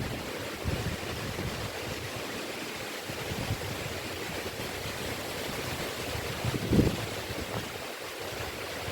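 Wind rushing steadily through forest trees, a surf-like hiss, with low gusts buffeting the microphone, the strongest about seven seconds in.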